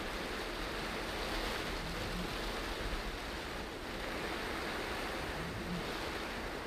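Steady hiss of heavy rain and tyres on a flooded road, heard from inside a moving car with the windscreen wipers running.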